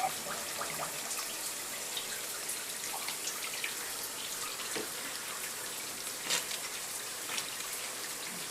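Rain falling steadily, with many individual drops ticking through an even hiss.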